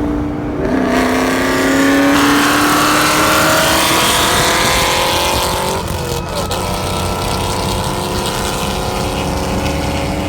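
2003 Ford Mustang's supercharged V8 engine pulling under acceleration, its pitch rising steadily for about six seconds, then dropping at a gear change and holding steady.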